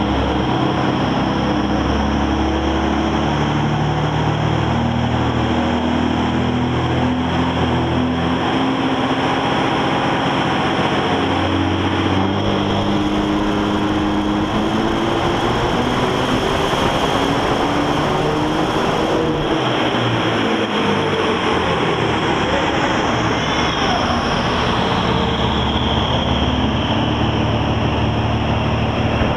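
2004.5 Dodge Ram 2500's 5.9 Cummins inline-six turbo diesel, fitted with an aftermarket pulse exhaust manifold, making a full-throttle pull on a chassis dyno. Its pitch climbs in steps over the first dozen seconds, then it runs at its loudest with a strong rushing hiss. After that it winds down, with a whistle falling in pitch near the end.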